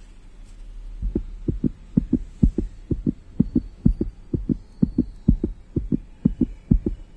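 Heartbeat sound effect: a fast, regular double thump (lub-dub), about two beats a second, starting about a second in over a low hum.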